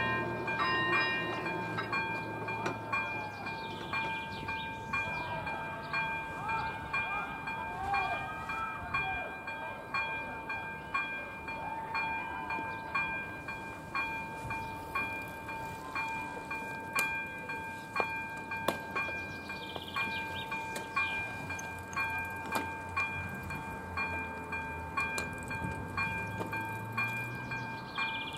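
Electronic level-crossing warning bell (AŽD ZV-01/ZV-02 e-bell) ringing steadily in evenly repeated dings, a sign that the crossing is closed and a train is due.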